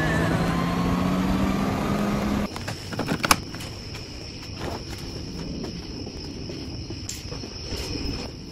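Honda Gold Wing GL1800 flat-six engine running on the road, its pitch slowly rising, for about two and a half seconds. It cuts to a steady high chirring of crickets with scattered clicks, including one sharp click about three seconds in.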